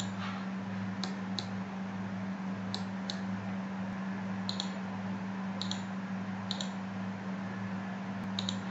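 Computer mouse clicks, about ten sharp clicks scattered through, several in quick pairs, over a steady low electrical hum.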